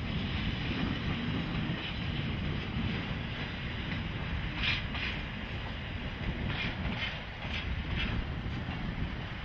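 JR EF64 electric locomotive rolling slowly past on arrival with a freight train: a steady low rumble of wheels and running gear, with a few short high squeaks about halfway through and again near the end.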